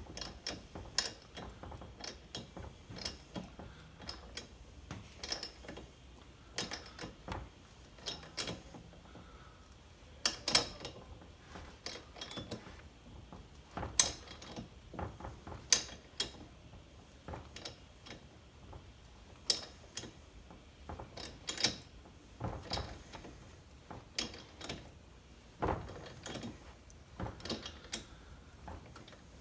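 Irregular small metal clicks and knocks of hand tools being handled and set down during thread tapping of a chainsaw's spark plug hole, some sharper than others, with quiet between them.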